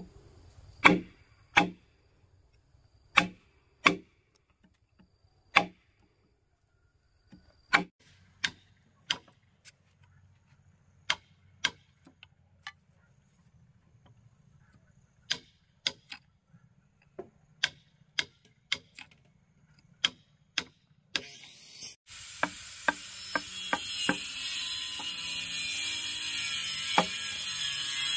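Sharp knocks at irregular intervals, like a hammer or mallet striking timber during work on a wooden house frame. Near the end a steady rushing noise sets in and grows louder beneath the knocks.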